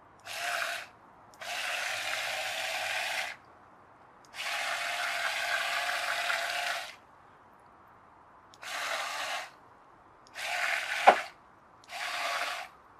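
Twin small 130-size electric motors of a toy RC boat driving their propellers in six short bursts, a mechanical buzz mixed with splashing from propellers that sit only partly in the water; the longest run lasts about two and a half seconds. A short sharp blip that falls quickly in pitch stands out near the end.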